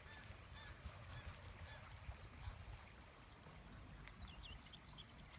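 Faint bird calls over a low rumble of wind, with a quick run of high chirps about four seconds in.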